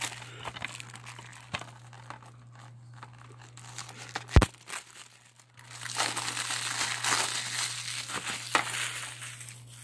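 Plastic shrink wrap crinkling as it is peeled off a DVD case, with a sharp click about four seconds in and steady crinkling from about six to nine seconds.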